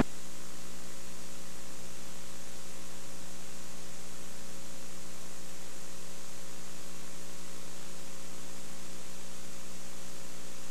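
Steady electrical mains hum with a faint hiss and nothing else: no crowd, field or voice sound, as when a recording's audio feed drops out and leaves only line hum.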